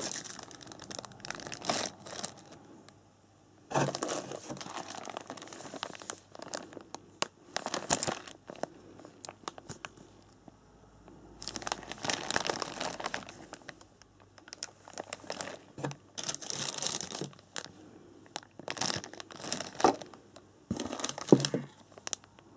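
Clear plastic bags holding the kit's plastic parts trees being handled and crinkled in bouts of a second or two, with sharp crackles and clicks among them.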